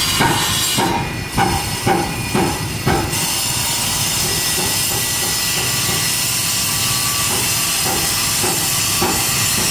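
A steady loud hiss throughout. Over it, in the first three seconds, comes a run of even strokes about two a second, like wood being hand-sawn, and a few fainter strokes return near the end.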